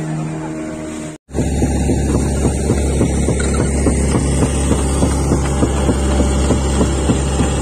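Fishing boat engine running steadily under way, a loud low rumble. It cuts out for a moment about a second in, then comes back louder.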